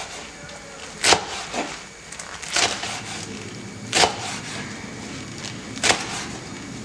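Knife chopping fresh Swiss chard on a wooden cutting board: four separate sharp chops, spaced about a second or two apart, with a fainter one just after the first.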